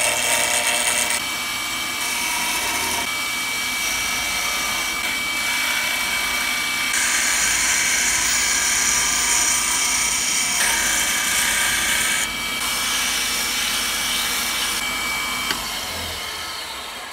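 Wood lathe running while a hand-held turning chisel cuts a spinning wooden blank down to a 12 mm dowel, a steady motor whine under the hiss and scrape of the cut, which changes as the tool moves along the wood.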